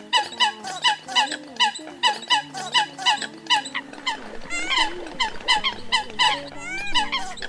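Eurasian coots calling: a rapid run of short, sharp, high calls, about three or four a second, with several birds overlapping in the second half. It is a lure recording of coot calls, meant to draw coots in.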